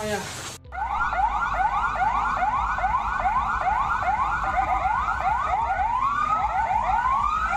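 Emergency vehicle siren on a fast yelp: quick rising sweeps, about three a second, repeating without a break. It starts abruptly about half a second in.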